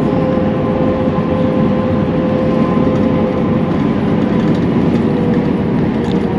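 Steady engine and road noise inside a moving bus, with a faint steady whine over it.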